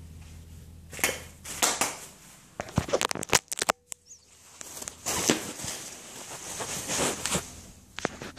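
Handling noise from the camera being grabbed and moved: irregular rustling, scraping and sharp clicks close to the microphone, starting about a second in, with a brief lull near the middle.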